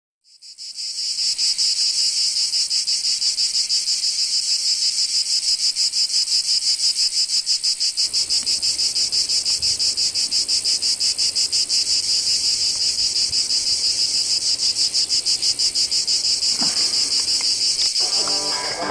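Insect chirring: a steady, high-pitched trill of rapid, even pulses that fades in at the start.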